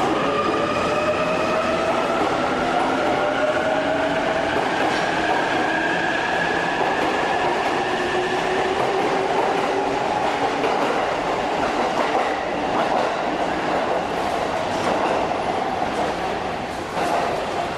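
E259 series Narita Express electric train pulling out and passing close by, its traction motors giving a whine that climbs slowly in pitch as it speeds up, over the steady running noise of the wheels on the rails. The sound eases off in the last few seconds as the rear of the train draws away.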